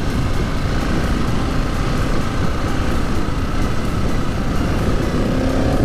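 Husqvarna 701 Supermoto's big single-cylinder engine pulling the bike along a road, heavily overlaid by wind buffeting on the helmet microphone; the engine note climbs a little near the end.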